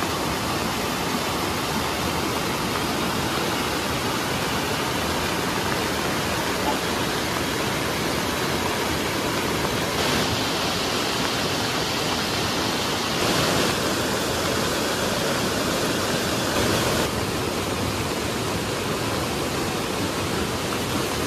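Steady rushing of a river swollen and running fast after heavy rain, a dense even noise with slight shifts in tone about ten, thirteen and seventeen seconds in.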